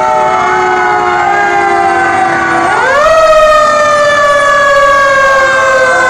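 Several fire engine sirens sound at once in a loud, overlapping wail. About three seconds in, one siren winds up sharply and then slowly winds down.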